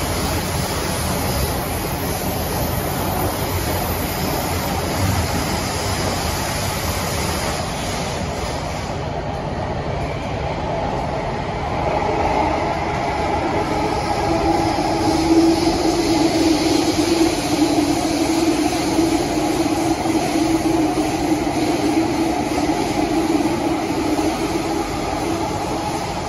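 Inside a Kawasaki–CRRC Sifang CT251 metro train car on the move: the steady rumble of the running train, with a hum that comes in about twelve seconds in as the sound grows louder while the train gathers speed.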